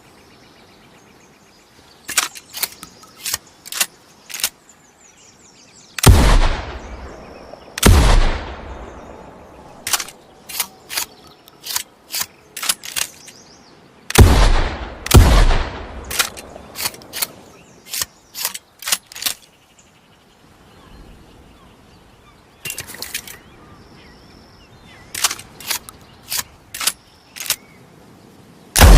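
Double-barrelled shotgun: several sharp metallic clicks from the action being handled, then two loud shots, each with a long echoing tail. The cycle repeats twice, the second pair of shots closer together than the first. A further shot comes at the very end.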